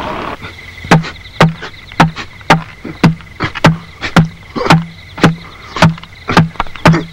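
A steady percussive beat, about two sharp knocks a second, each with a short low hum after it, sometimes doubled. It is the opening of a rhythmic music track.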